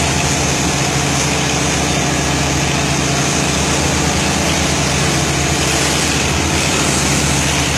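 Boat engine running steadily, a low even hum under a loud, constant rushing noise.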